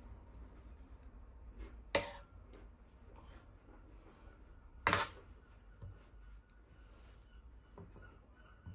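A metal serving spoon clinking twice against cookware while tomato sauce is spooned from the pan onto a bowl of spaghetti, with a few fainter taps and scrapes between.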